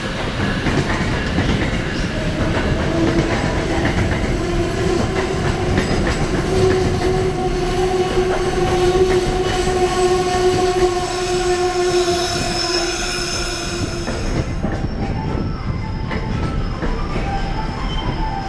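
Amtrak passenger coaches rolling in along the platform and slowing to a stop, with wheel-on-rail rumble and clatter. A steady squeal rises a few seconds in and dies away about fourteen seconds in as the train brakes.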